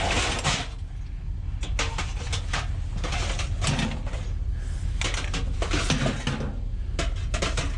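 Irregular knocks, clunks and scrapes of scrap items being shifted around in the back of a van, over a steady low rumble.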